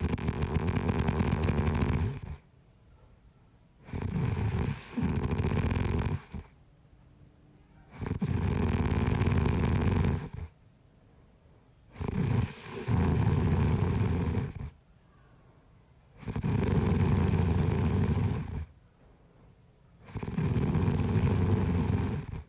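A man snoring in his sleep in a steady rhythm: six long, rasping snores of about two seconds each, one every four seconds or so, with quiet breathing gaps between. A couple of the snores catch briefly partway through.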